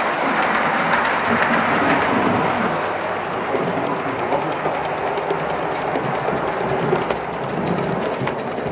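Gas-fired live-steam garden-railway tank locomotive running along the track with a train of log wagons: a steady rush of steam exhaust with rapid clicking and clatter from the wheels on the rails.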